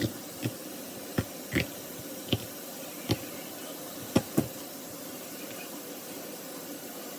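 Wet knocks and squelches from handling a fish in a sink, about eight in the first four and a half seconds, two of them close together near four seconds in. Under them runs a steady hiss, like a running tap.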